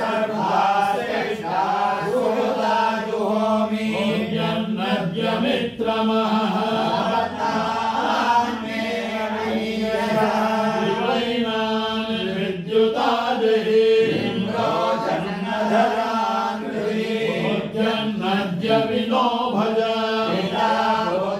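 Vedic chanting (Veda ghosha): voices reciting in a continuous, even chant over a steady held tone.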